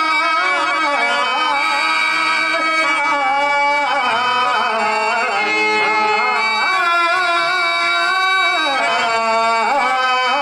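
A man singing a long, ornamented verse with a sliding, wavering melody over a harmonium's sustained reed tones, in the sung-poem style of Telugu stage drama.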